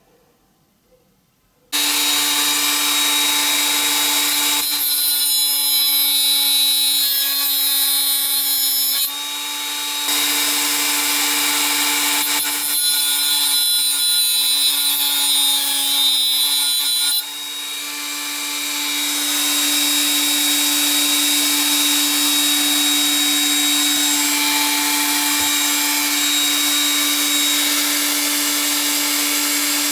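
Small electric disc sander switching on about two seconds in and running with a steady motor hum, grinding as a small part is pressed against its abrasive disc. The grinding drops away briefly about nine seconds in and again about seventeen seconds in, then builds back.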